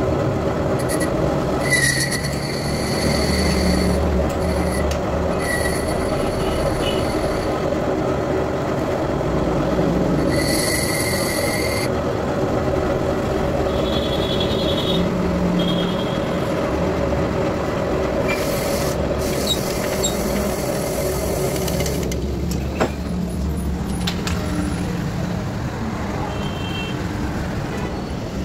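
Metal lathe turning a motorcycle wheel's brake drum hub, with the cutting tool scraping and rasping on the metal over a steady hum. High squealing tones come and go about 2 to 5 seconds and 10 to 12 seconds in, and the high scraping drops away about 22 seconds in, leaving mostly the hum.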